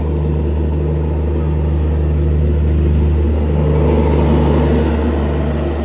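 Passenger train running past beneath: a loud, steady low drone with the rumble of the coaches rolling by, swelling a little about two thirds of the way through.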